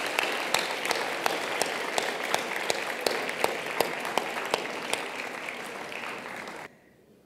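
Audience applauding: a dense, steady patter of many hands clapping that cuts off suddenly near the end, leaving near silence.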